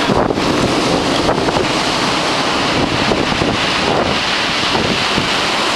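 Sea waves breaking and surging onto the shore, a steady loud wash, with wind buffeting the microphone.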